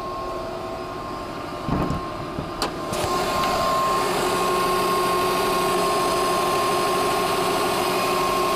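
2006 Subaru Legacy GT's turbocharged 2.5-litre flat-four engine running at cold fast idle. There is a low thump about two seconds in and a click shortly after, then the idle runs louder and steady with a thin whine over it.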